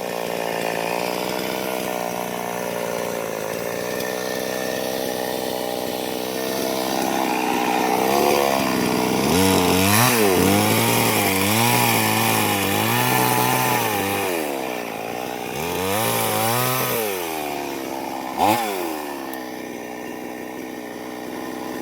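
Two-stroke chainsaw running, its engine pitch repeatedly rising and dropping as it is revved and loaded in the cut. A short loud sound stands out near the end.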